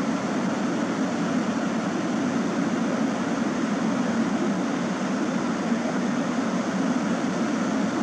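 Steady rush of water pouring down a small concrete weir step into a channel, a constant low rushing noise with no let-up.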